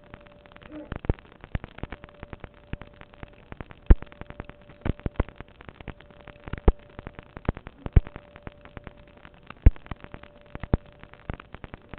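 Irregular sharp pops and clicks at uneven intervals, a handful much louder than the rest, over a faint steady tone that drops out now and then.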